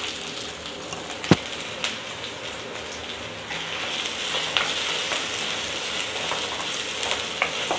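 Chopped shallots sizzling in hot sesame oil in a clay pot, with one sharp tap about a second in. From about four seconds in, a wooden spatula stirs them, adding light scrapes and taps over the steady sizzle.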